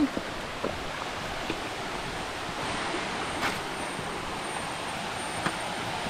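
Waterfall and stream water rushing steadily, with a few faint knocks over the top.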